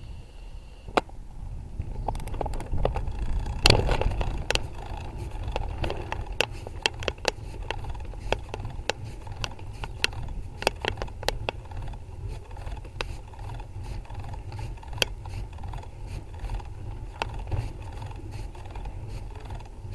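A bicycle climbing a steep street, heard from a handlebar-mounted camera: a steady low rumble with many sharp, irregular clicks and knocks of the bike and camera mount rattling, loudest about four seconds in and thinning out in the second half.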